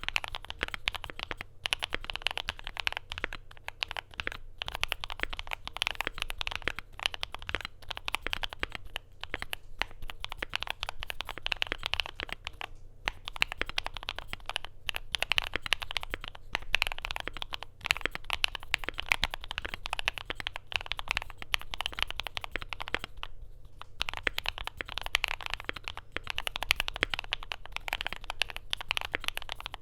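Steady typing on a Luminkey80 mechanical keyboard with lubed, filmed Gateron Sylva switches, a polycarbonate plate and PBT double-shot keycaps: a fast, dense stream of keystroke clacks with a few brief pauses.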